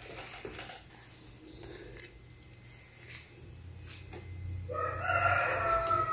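A rooster crowing once, starting a little before five seconds in: a long call that holds its pitch and then falls away at the end. Before it there are only a few faint clicks and taps.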